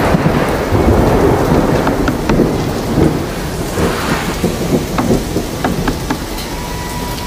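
Loud, steady rushing noise with a deep rumble underneath and a few sharp ticks scattered through it. It sounds like heavy rain and thunder.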